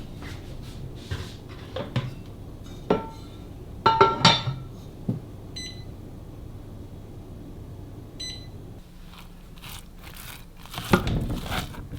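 Kitchen work: dishes and utensils knocking and clinking, with a louder ringing clink about four seconds in. Two short electronic appliance beeps sound around the middle, and rustling and crinkling start near the end.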